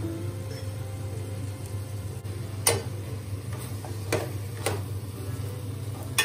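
Metal spoon stirring chicken curry in a stainless steel pot, clinking sharply against the pot four times in the second half, over a steady low hum.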